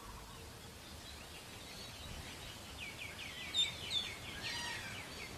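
Birds calling over a faint outdoor background: a quick run of short high chirps through the middle, with two louder, sharp notes a little past halfway.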